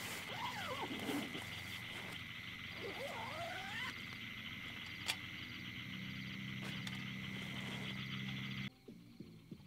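Night chorus of frogs: a steady, fast-pulsing trill, with two sweeping calls, one falling about half a second in and one rising about three seconds in, and a low droning note joining about six seconds in. It all cuts off suddenly near the end.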